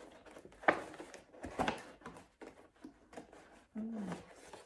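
Packaging of a small gift box being handled and unwrapped: scattered light rustles and clicks of paper, ribbon and box, with a brief low 'mm' from a voice near the end.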